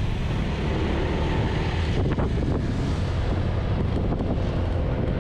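Steady wind rush over the microphone of a moving Honda Vario 160 scooter, with the low, even hum of its single-cylinder engine underneath.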